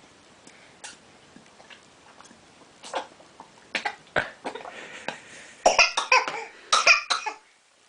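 A baby of about nine months coughing while eating: a run of short coughs that starts about three seconds in and grows louder, loudest near the end.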